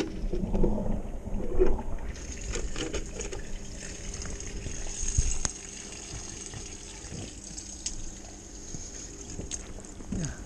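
Water gurgling and gushing down a clogged flat-roof drain in uneven surges, loudest near the start and again about halfway through, then settling to a quieter flow.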